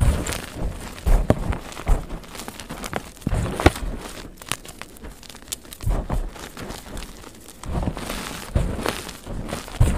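Dyed gym chalk chunks and powder being crushed and crumbled by hand, a dense irregular run of crunching and crumbling with a sharper crack a little before four seconds in. The sound is sped up.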